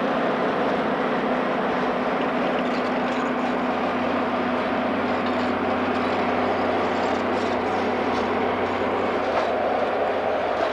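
EMD FP7A diesel-electric locomotive running under power as it passes close by, its two-stroke V16 diesel making a steady drone. After about five seconds the engine tone eases and the passenger cars rolling by on the rails take over.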